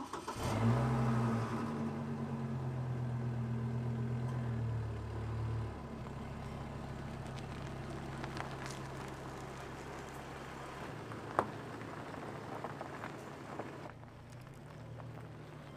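Chevrolet Colorado pickup's engine running at a steady idle. It is louder for the first six seconds or so, then settles quieter.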